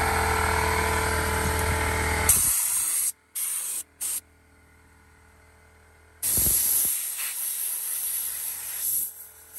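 A steady mechanical hum for about the first two seconds, then a compressed-air blow gun on an air hose hissing in blasts as it blows dog hair out of vehicle carpet: one long blast, two short spurts, a pause of about two seconds, then another long blast.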